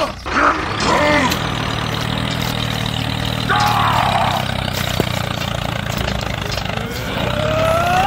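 Steady low tractor-engine drone, with a few short pitched calls over it: two near the start and one around three and a half seconds in.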